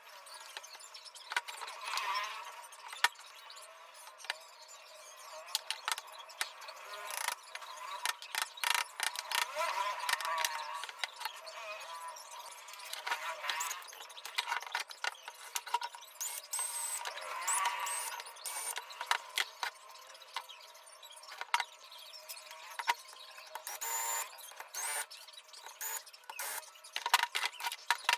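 Steel vise parts and hand tools clinking and knocking irregularly on a workbench, with brief squeaky tones between the knocks.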